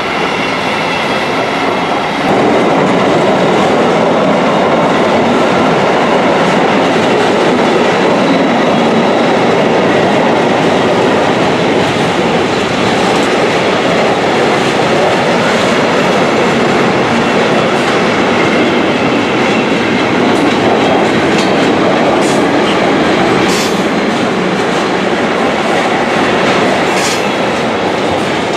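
Loaded container wagons of a long intermodal freight train rolling past on the rails: a steady, loud rumble of wheels on track that grows louder about two seconds in, with a few sharp high clicks near the end.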